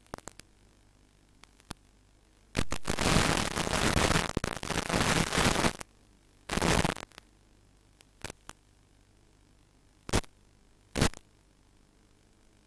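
Loud static hiss from an analog FPV video link, cutting in and out abruptly. It comes as one long burst of about three seconds, a shorter burst, then a few brief crackles. These are signs of radio interference or signal breakup on the link.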